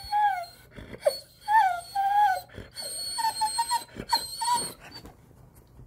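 Doberman "talking" back with a series of high, moaning whine-howls in answer to being coaxed to say "I love you". The calls bend in pitch, and a choppy run of short notes comes about three seconds in.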